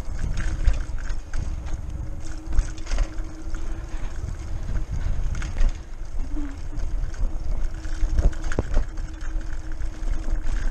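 Lime rental bike rattling and knocking as it rides over a pavement, with wind rumbling on the handlebar-mounted microphone and a steady hum underneath.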